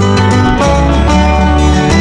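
Background instrumental music with steady sustained notes over a held bass line.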